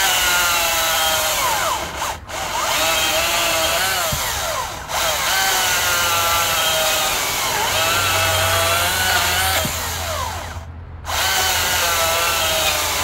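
Ego CSX5000 20-inch cordless electric chainsaw running in high gear while cutting through a log about 9 inches thick. Its motor whine sags in pitch under load and climbs back. It cuts out briefly a few times, the longest gap near eleven seconds, then starts again.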